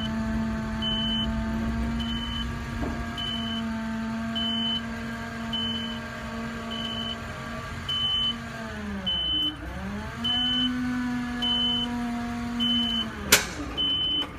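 Hydraulic hook-lift of a mini garbage truck running under load as it pulls a bin onto the bed: a steady mechanical hum whose pitch sags and recovers about two-thirds of the way through. A short high warning beep sounds about once a second throughout, and near the end a sharp clunk as the bin seats, after which the hum dies away.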